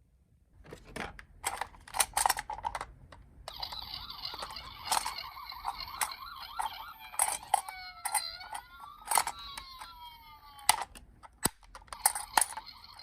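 Toy emergency-vehicle minicar's electronic siren sounding, with gliding tones around the middle, over sharp clicks and knocks of the plastic toy being handled.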